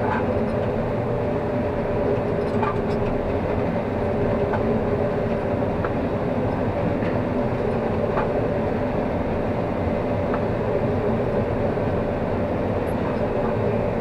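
Combine harvester running while it harvests standing corn, heard from inside the cab: a steady drone with a constant hum and a few faint ticks.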